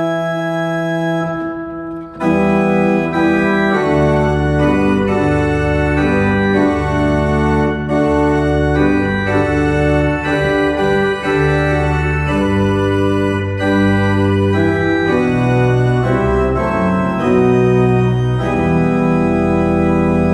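Church pipe organ playing a hymn tune in full chords over a bass line, the chords changing about once a second. The first phrase ends with a short break, and the next phrase begins about two seconds in.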